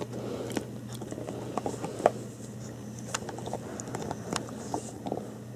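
American bulldog nibbling and scraping at a rubber chicken toy with its front teeth: irregular small clicks and scratches. He gnaws rather than bites down, so the toy does not squeak.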